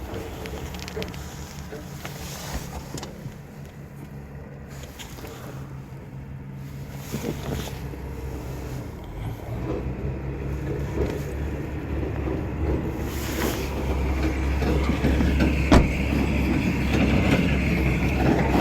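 A vehicle engine running steadily nearby, growing louder in the last few seconds, with a few scattered clicks and knocks.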